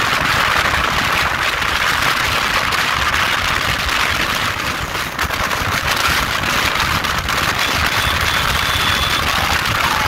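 Steady rush of wind over the microphone of a motorcycle ridden fast, with the engine and tyre noise running underneath as a fluttering low rumble.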